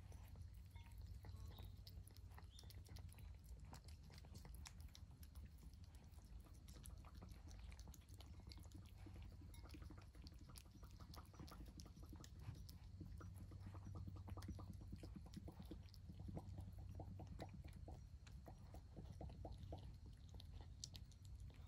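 Cats eating wet food from a bowl: faint wet chewing and smacking clicks. In the second half these settle into a quick regular rhythm of about four a second.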